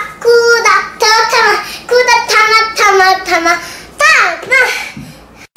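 A young girl singing a bouncy tune in short notes about twice a second, with a swooping note about four seconds in; the singing cuts off suddenly near the end.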